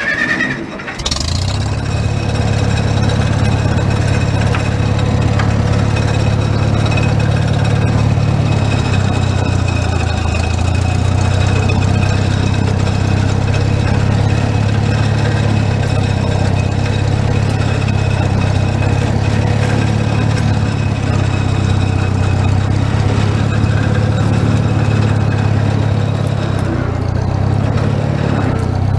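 Old Massey tractor's engine catching about a second in after cranking, then running steadily.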